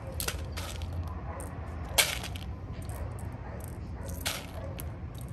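Airsoft pistol gas magazine being loaded by hand with plastic BBs: a handful of separate small clicks, the sharpest about two seconds in.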